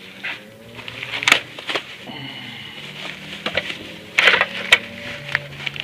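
Packing material (styrofoam and wrapping) being handled and pulled out of the planer's box, with sharp cracks and crackles: two about a second in and a cluster just after four seconds. Under it runs a low engine drone that rises and falls in pitch, from dirt bikes out in the street.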